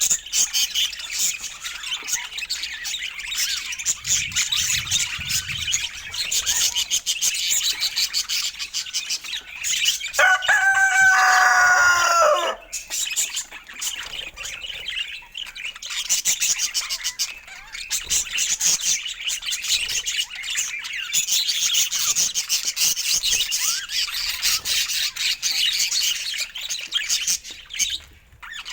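Budgerigars chirping and chattering continuously in dense, high-pitched twitters. About ten seconds in, a lower, drawn-out call lasts a couple of seconds.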